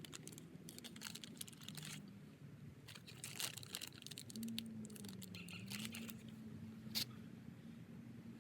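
Crinkling and rustling of a climbing skin's fabric and nylon strap being handled as rivet posts are pushed through the punched holes, with scattered small clicks and one sharper click about seven seconds in. A faint low hum runs underneath.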